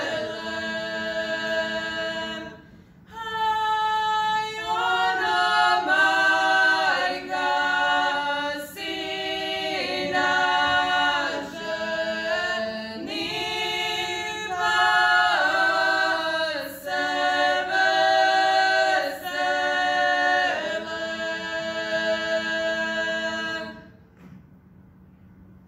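Five women singing a traditional folk wedding song (svatovska pjesma) a cappella in close harmony, with a short breath break about three seconds in. The song ends near the end, leaving the hall quiet.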